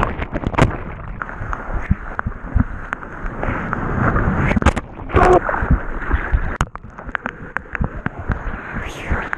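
Seawater sloshing, gurgling and splashing over a surfer's point-of-view action camera as it dips under and rides through breaking waves, with many sharp taps and knocks of water hitting the camera. The splashing grows louder about five seconds in.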